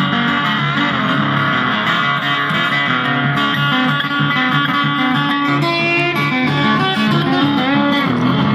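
Acoustic guitar played flat across the lap, amplified: a steady instrumental line of plucked notes, with a few notes sliding in pitch partway through.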